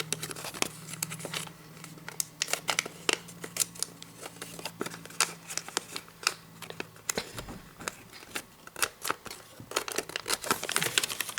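Sheet of origami paper being folded and creased by hand: a run of short, irregular crinkles and crackles as the flaps are bent and pressed flat.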